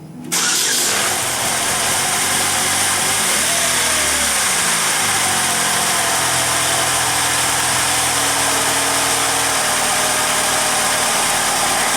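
2007 Chevy Cobalt's 2.2-litre Ecotec four-cylinder engine cuts in suddenly, rises in pitch briefly about three to four seconds in, then settles back to a steady idle. It is running normally on a freshly cleaned throttle body.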